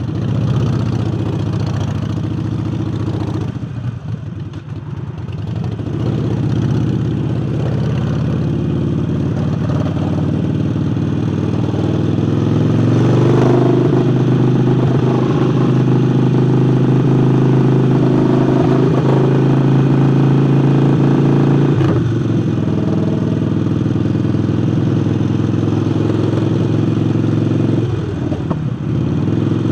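Harley-Davidson Forty-Eight's V-twin engine, fitted with a new air intake, running while riding. The revs build about twelve seconds in, hold, then fall back sharply around twenty-two seconds, with another brief dip near the end.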